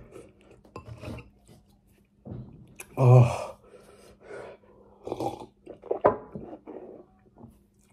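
A man's wordless groans and heavy breaths as his mouth burns from very spicy noodles, the loudest, a low groan, about three seconds in, with a short knock about six seconds in.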